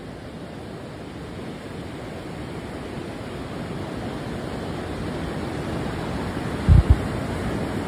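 Surf breaking on a sandy beach: a steady wash of waves that grows louder. Near the end come two deep thumps close together.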